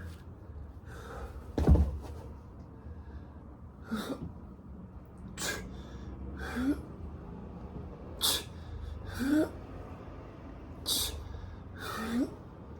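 A person breathing hard with effort: sharp hissing breaths alternate with short grunts that rise in pitch, about every second and a half, as in exercise repetitions. A single low thump, the loudest sound, comes about two seconds in.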